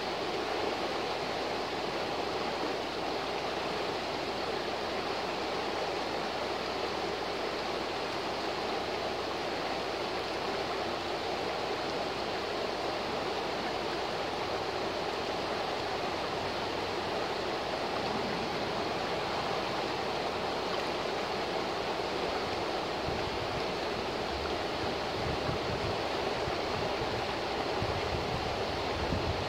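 Shallow river rushing over rocks in riffles: a steady, even rush of water. Some low rumbling comes and goes in the last few seconds.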